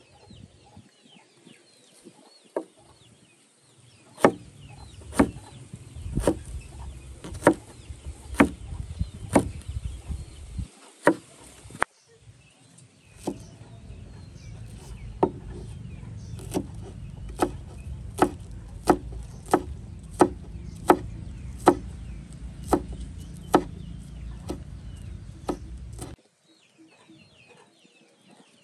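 A run of sharp knocks about once a second, like a knife chopping on a wooden board, with a brief pause around the middle. Chickens cluck in the background.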